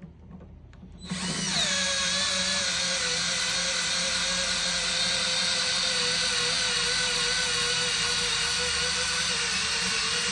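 DeWalt DWHT66719 4-volt cordless screwdriver's motor and gearbox whining. It starts about a second in, drops a little in pitch as it settles, then runs steadily.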